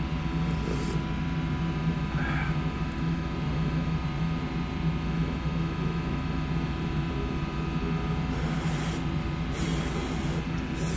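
A person slurping ramen noodles and sipping soup from a spoon: a short sip about a second in, then several short slurps in the last few seconds, over a steady low machine hum.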